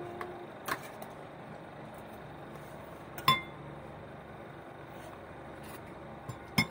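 Spoons and forks clinking against plates at a meal: three sharp clinks a few seconds apart, the middle one ringing briefly, over a low steady background hum.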